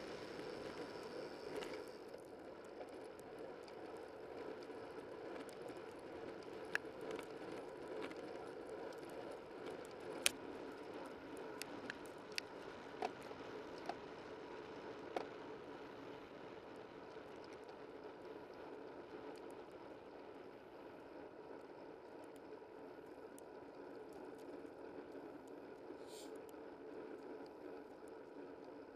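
Bicycle riding along a road: steady tyre and drivetrain noise picked up close by a camera mounted low on the bike, with a few scattered sharp clicks through the middle.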